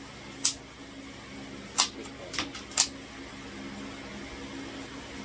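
Four short, sharp clicks or cracks, the last three within about a second of each other, over a steady low hum.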